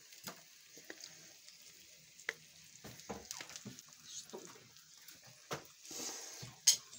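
Pelmeni frying in a pan with freshly poured oil: a light sizzle with scattered crackles and pops, and one sharp pop near the end.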